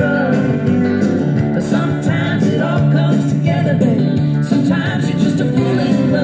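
Country-rock song with guitar and singing, played back from a cassette tape on a Technics M218 cassette deck.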